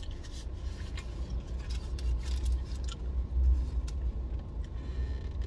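Low, steady rumble of a car heard from inside its cabin, likely the engine idling, with a few faint rustles and clicks over it.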